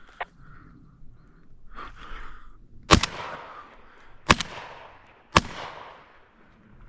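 Three shotgun shots, the first about three seconds in, then about a second and a half and a second apart, each trailing off briefly.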